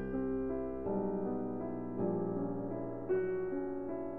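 Slow background piano music, with a new note or chord struck about once a second and left to ring.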